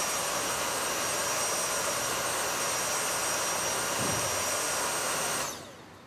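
Vorwerk Kobold VB100 upright vacuum cleaner running at a raised power setting: a steady rushing sound with a high whine. It is switched off about five and a half seconds in and winds down.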